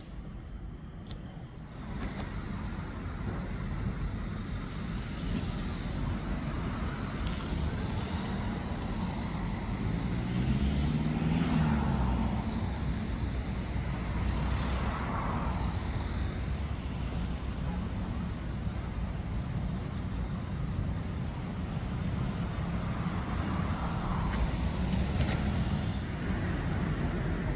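City street traffic: cars passing one after another, their engine and tyre noise swelling and fading with each pass, the loudest pass about eleven seconds in.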